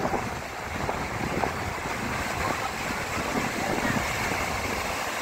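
Sea waves washing in and breaking as a steady rushing noise, with wind gusting on the microphone.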